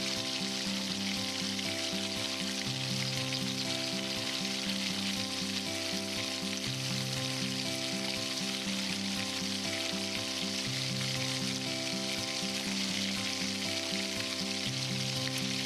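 Chicken frying in a small clay pot with a steady, unbroken sizzle. Background music with repeating notes plays underneath.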